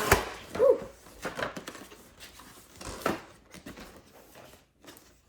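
Toy packaging being handled: a run of short knocks, clicks and rustles as pieces are pulled and pushed free of the box, with a brief squeak about a second in, thinning out toward the end.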